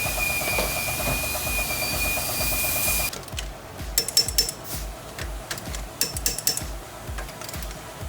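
A power tool running with a hiss, a thin whine and a fast, even rattle, stopping abruptly about three seconds in; then sharp metallic clinks of tools and parts being handled.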